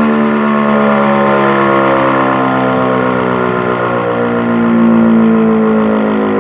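ACA P-15 outdoor warning siren sounding the attack signal: a loud, many-overtoned wail whose pitch slowly falls and rises, swelling louder about five seconds in.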